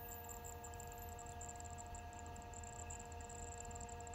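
CNC lathe running its program: a steady, fairly quiet hum with several faint, constant whining tones from the spindle and axis drives.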